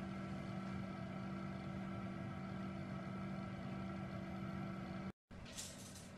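Steady electric hum of a Nurture Right 360 egg incubator's fan running, made of a few level tones. It cuts out briefly about five seconds in and comes back quieter, with a few faint ticks.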